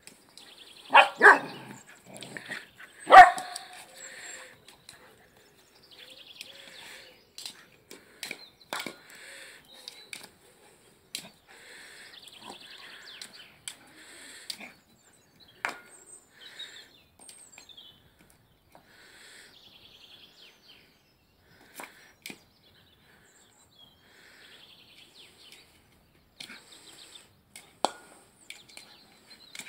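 Dogs barking during rough play, two loud barks about one and three seconds in, followed by scattered faint knocks and scuffles as a dog chases a toy egg over the grass, with a sharper knock near the end.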